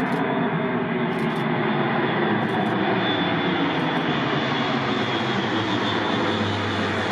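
Airbus A400M's four turboprop engines running, a loud, steady noise with a thin steady hum and whine in it.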